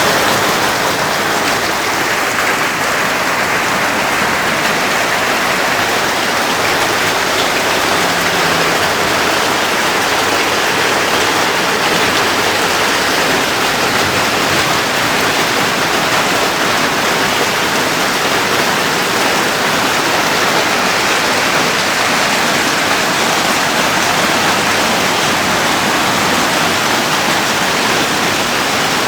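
Torrential rain pouring down in a heavy, steady hiss.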